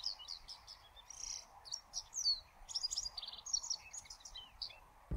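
Japanese wagtail singing: a quick, varied run of high chirps and short whistled notes with brief pauses, and one buzzy note about a second in.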